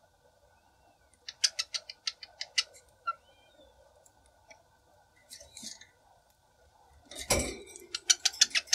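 Cockatiels pecking at thawed greens and seed heads in a plastic feeding tray: quick runs of sharp beak clicks, one about a second in and another near the end, with a single thump just before the second run.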